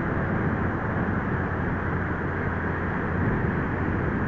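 Steady rushing noise of wind on the microphone, with a low steady hum underneath.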